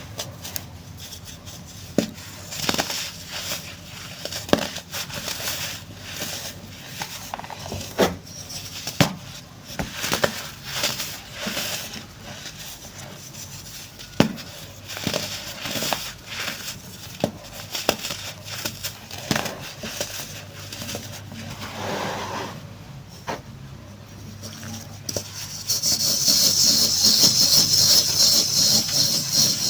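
Compressed baking soda crumbling and being crushed: irregular crisp crackles and sharp snaps. Near the end it turns into a louder, continuous gritty crunch.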